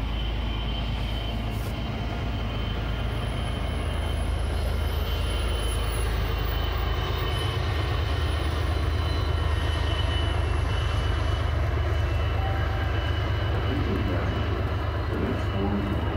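Commuter rail train running past the station: a steady low rumble with a thin, steady high whine above it.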